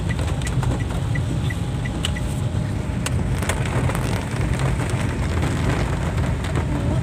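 Heavy rain pelting the roof and windscreen of a moving car, heard from inside the cabin, with scattered sharp drop clicks over the steady low rumble of the engine and tyres on the wet road. A light, regular ticking, about three a second, runs through the first two seconds.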